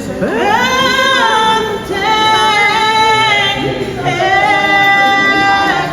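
A woman singing three long, high held notes, with little or no accompaniment; the middle note wavers briefly.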